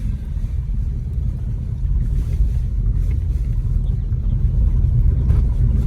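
A vehicle driving, a steady low rumble.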